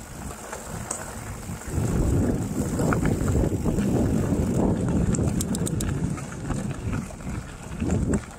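Mountain bike rolling down a gravel forest road: wind rumbling on the microphone over the crunch of the tyres on gravel, getting louder about two seconds in, with a few light clicks and rattles.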